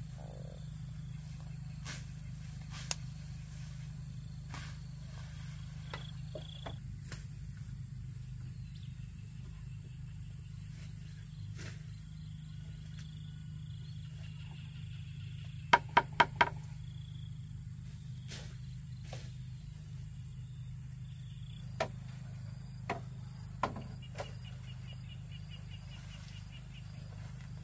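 Steady outdoor background with a faint high insect chirr, broken by sharp knocks: four in quick succession about sixteen seconds in, and a few single ones elsewhere.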